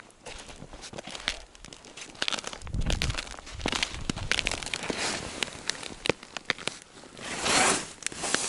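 Boots crunching over snow and thin snow-covered ice, with many crackling clicks and clothing rustling. A dull thump comes about three seconds in, and a longer rustling swish near the end.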